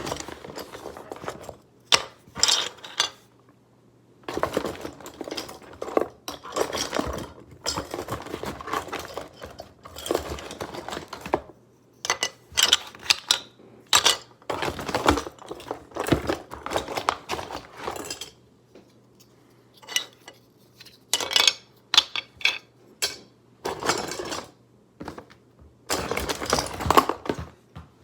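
Small hard plastic toys clattering and clicking against each other as a hand rummages through a box of them, in irregular bursts with short pauses.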